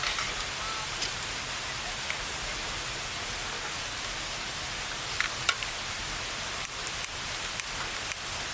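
Steady hiss of rushing noise, with a few short clicks and taps about a second in, around the middle and several near the end.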